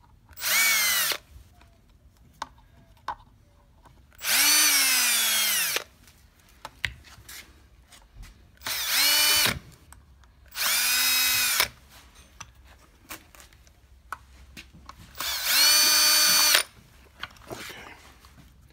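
Milwaukee cordless drill/driver backing out screws, in five short runs of about a second each, with small clicks and knocks of handling between them. Its motor pitch sags slightly under load in some runs.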